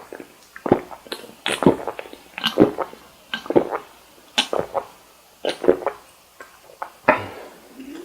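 Close-miked chewing of cocktail shrimp: a run of short, uneven mouth sounds, about one or two a second.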